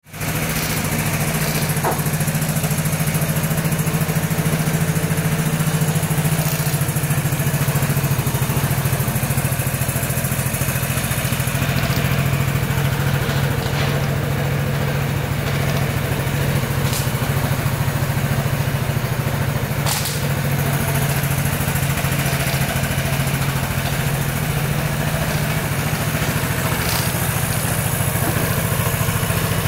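2013 Vespa GTS 300 Super's single-cylinder four-stroke engine idling steadily, with an occasional light click.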